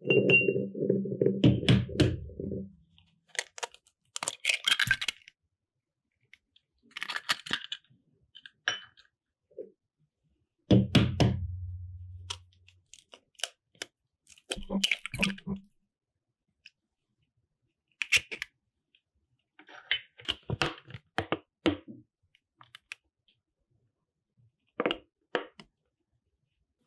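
Raw eggs being knocked and cracked open against a glass mixing bowl and their shells pulled apart, a series of separate taps, cracks and clicks. Two heavier thunks with a short low ring, one at the start and one about halfway, as a bowl or egg meets the glass.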